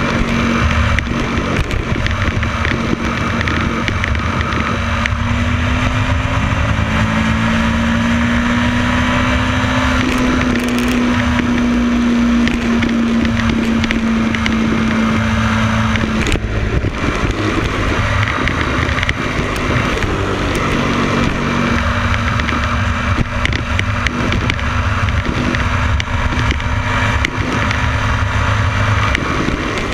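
Motorcycle riding at steady highway speed: an engine drone under heavy wind and road noise on the mounted camera. The engine note climbs a little partway through, holds, then sinks under the wind and comes back later.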